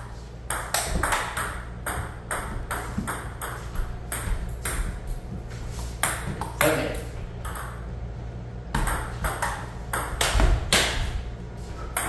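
Table tennis ball clicking sharply off the paddles and the table in quick runs of hits, with a short lull about two-thirds of the way through.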